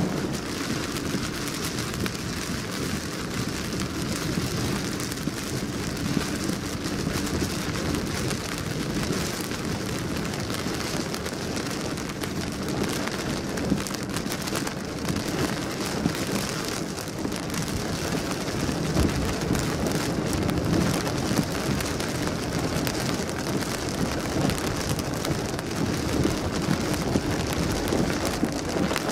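Heavy thunderstorm rain pelting a car's windscreen and roof, heard from inside the car as a dense, steady patter of drops.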